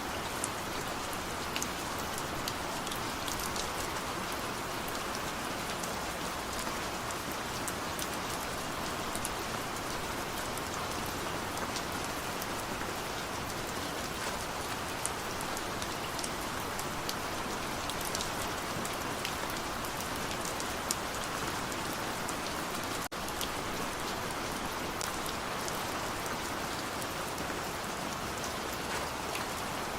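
Heavy rain falling steadily: a dense, even hiss with scattered sharp drop ticks, broken by a momentary dip in the sound about three-quarters of the way through.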